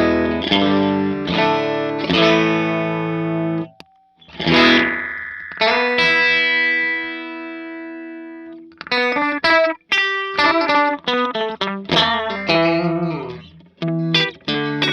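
Electric guitar (Fender Stratocaster) playing through a Daily Driver overdrive and a Sonicake Echo Rain delay pedal into a Vox AC30 amp, with a light overdriven edge: a few strummed chords, then one chord left ringing and fading for about four seconds, then a quick run of picked notes and chords.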